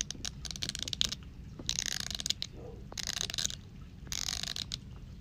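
Teeth of a comb scratched with a thumb: a fast run of separate clicks near the start, then three longer rattling strokes about a second apart.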